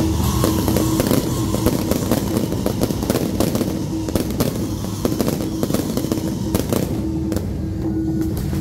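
Fireworks going off: a dense, irregular run of crackling pops from fountains and aerial bursts.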